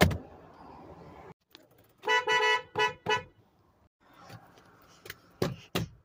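Car horn sounding two short beeps, the first a little longer than the second. A sharp knock comes just before them, and two more knocks near the end.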